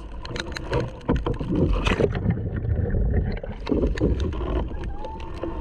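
Sea kayak capsizing and being rolled back upright in rough, windy water: splashing and churning water with wind buffeting the microphone. The sound goes muffled for about a second midway through.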